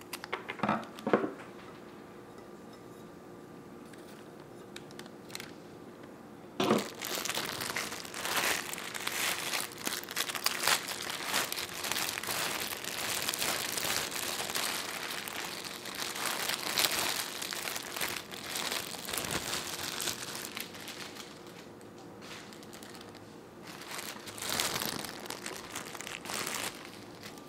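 A few sharp snips of scissors cutting flower stems about a second in, then long stretches of crinkling as clear plastic flower wrapping is handled and crumpled.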